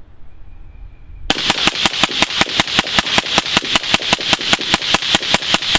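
Suppressed LMT AR-15-type rifle emptying a 30-round magazine in rapid, evenly spaced shots, about five a second, starting a little over a second in.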